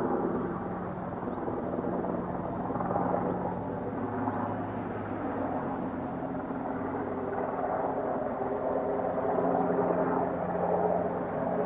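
A steady low mechanical drone, like an engine or motor running, with a few held low tones that swell and ease slightly.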